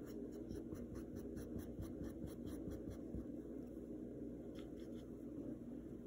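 Paintbrush bristles scratching lightly across textured canvas in many short, quick strokes, a few a second, as white paint is feathered on in little X marks to texture fur. The strokes thin out briefly about two thirds of the way through while the brush is dabbed on the palette.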